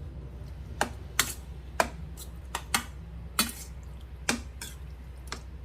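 Irregular sharp clicks and taps of kitchen utensils, roughly two a second.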